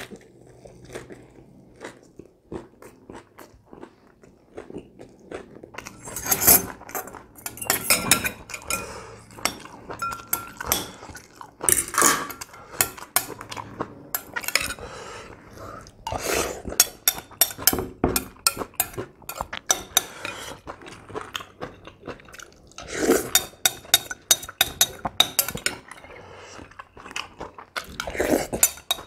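Close-up eating sounds: chewing and crunching on pan-fried chicken, with a spoon clinking and scraping against a glass bowl of noodle soup. The sound is a dense run of sharp clicks and crackles.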